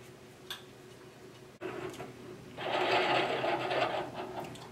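Vintage wind-up alarm clock's alarm going off: a rapid mechanical rattle that starts suddenly about a second and a half in, grows louder a second later and stops near the end.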